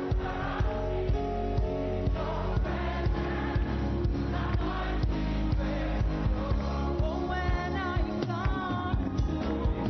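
Gospel praise music: a choir singing over a band with a steady beat.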